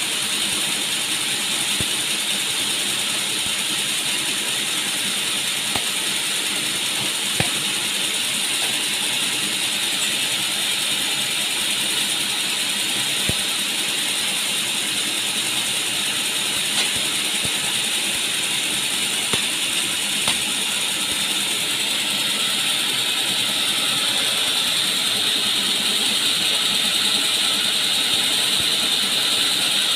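Sawmill log band saw running steadily with a high whine and hiss, with a few sharp knocks from the log carriage now and then. It grows a little louder over the last few seconds.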